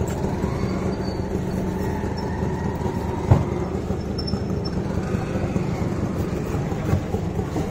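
Steady street traffic noise with a low rumble, and one sharp knock a little over three seconds in.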